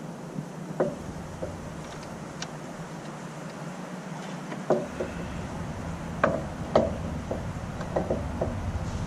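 Irregular light clicks and knocks of tools and metal car parts being handled during strut work, louder and closer together in the second half. A low rumble comes in about halfway through.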